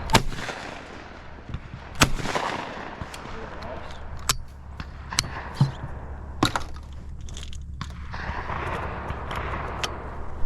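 Shotgun shots at clay targets: one right at the start and a louder one about two seconds in, followed by several fainter, more distant shots.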